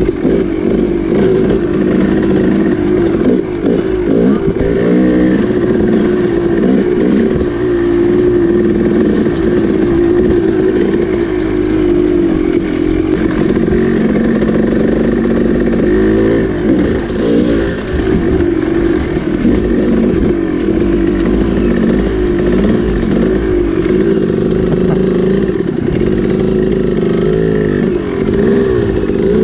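Dirt bike engine running while riding along a trail, its pitch wavering up and down with the throttle.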